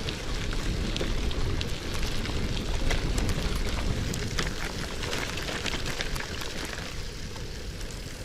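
Bicycle tyres rolling over a wet dirt road, with a steady crackle of many small clicks from wet grit and spray over a low rumble.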